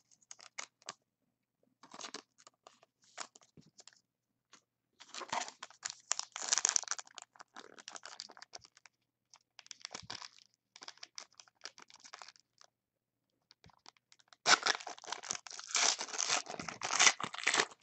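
Plastic and foil crinkling in scattered spells as trading cards and wrappers are handled, then a foil trading-card pack wrapper torn open, with dense continuous crinkling and ripping through the last few seconds.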